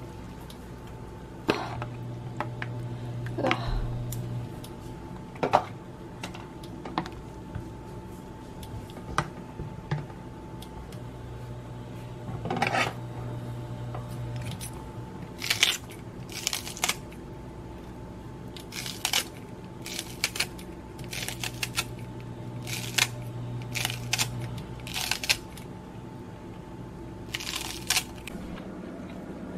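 Kitchen scissors snipping repeatedly over a pot of simmering kimchi stew, a quick run of sharp clicks that grows busier in the second half. Under it a low hum comes and goes, switching on for a few seconds at a time.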